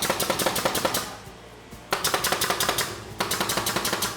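Nail gun firing in three rapid bursts of sharp clacks with short pauses between, driving nails into a plywood subfloor laid over high-density styrofoam.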